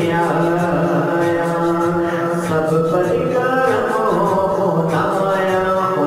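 Background music: wordless a cappella devotional vocal chant in the style of a naat, layered voices gliding over a steady low sustained hum.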